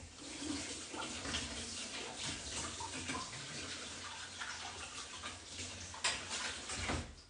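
Kitchen tap running water steadily; it stops near the end.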